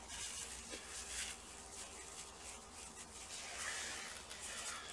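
Faint, irregular rustling and brushing of a sleeve and gloved hands moving over the open laptop and the cloth work mat.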